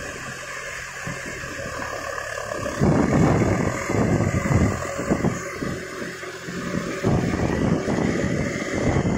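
John Deere 4WD tractor's diesel engine running under load, pulling a rotavator through a flooded, muddy field. About three seconds in the sound grows louder and more uneven.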